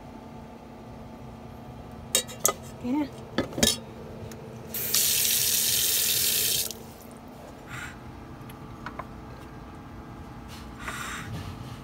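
A few sharp knocks and clatters of kitchenware, then a kitchen tap runs into the sink for about two seconds and is shut off abruptly.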